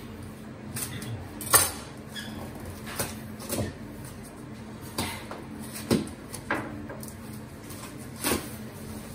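Cardboard box being cut and opened by hand: a knife slitting the packing tape and the cardboard flaps knocking and scraping, in a string of sharp knocks and rustles about a second apart, the loudest about a second and a half in. A steady low hum runs underneath.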